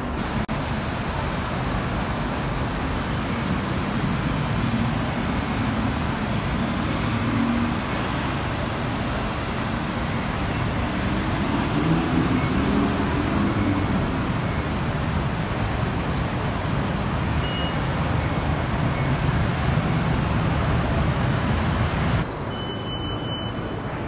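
Steady rumble of busy city road traffic, with no clear separate events; it drops abruptly to a quieter level near the end.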